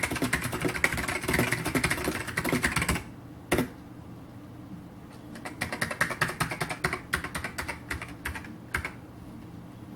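Fast typing on a SolidTek ASK-6600C mechanical keyboard with white ALPS switches: a quick run of keystrokes for about three seconds, a pause with a single louder keystroke, then a second run of typing.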